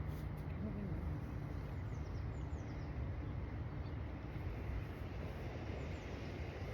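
Steady outdoor background noise with a low rumble, and faint high bird chirps in short falling notes, a few about two seconds in and more near five seconds.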